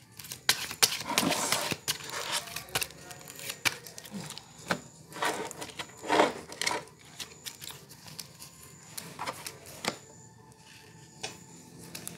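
Paper playing cards being shuffled and slapped down onto a wooden table: a string of sharp clicks and short rustles, busiest in the first seven seconds and sparser near the end.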